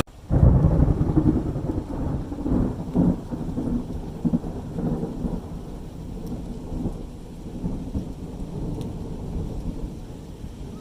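Thunder: a loud low rumble that breaks in just after the start, loudest in the first second, then rolls on with uneven swells and slowly fades.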